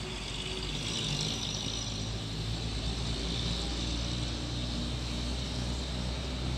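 Truck engine idling steadily, with a hiss over it.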